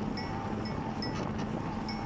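Bicycle riding along a paved path: a steady rush of wind and tyre noise with a faint wavering hum, and short high chirps or clinks recurring irregularly every half second or so.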